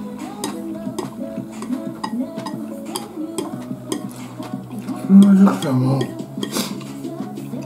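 Chopsticks clicking against a ceramic rice bowl and plate, with eating sounds, over background music. About five seconds in there is a brief loud low note.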